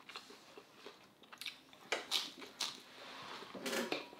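Close-up chewing of lettuce-wrapped steak: soft crunching and wet mouth noises, with a few sharp clicks about two seconds in.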